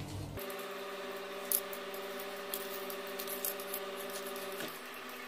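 Small clicks and scrapes of a screwdriver and wires being worked at a wall switch board's terminals, with a sharper click about one and a half seconds in, over a steady hum.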